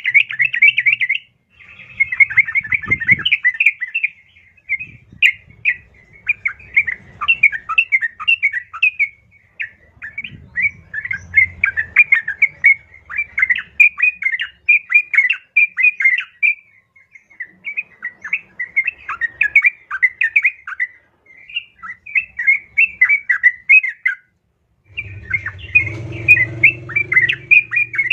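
Yellow-vented bulbul (trucukan) chattering in fast runs of bright chirps, broken by a few short pauses: a female's call, used as a lure to make males answer and sing.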